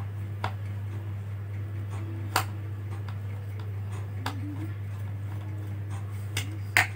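A screwdriver undoing the single screw that holds a laptop's optical drive: a few scattered small clicks, the sharpest about two and a half seconds in, over a steady low hum.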